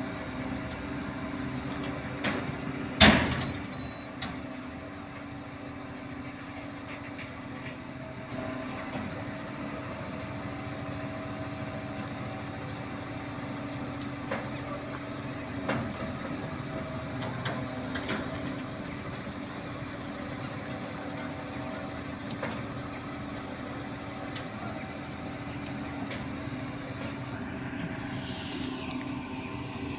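Truck cranes' diesel engines running steadily as they hoist a heavy load. There is one sharp knock about three seconds in, and a few fainter clicks after it.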